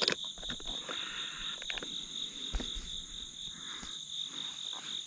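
Insects singing steadily in the field, a high-pitched, rapidly pulsing buzz over a second, higher hum. A few light clicks and knocks of handling sound through it, one right at the start.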